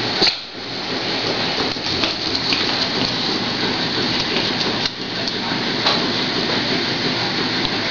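Small walker wheels on a dog's PVC-pipe wheelchair rolling over a tile floor as the dog pulls it, a steady grainy rattle with a few faint clicks.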